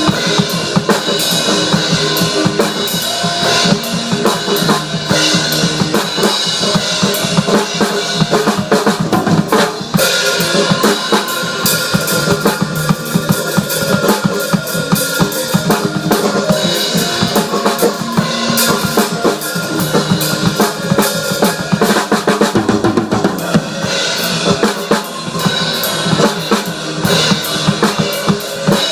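Drum kit played without a break: kick drum, snare and cymbals struck many times a second.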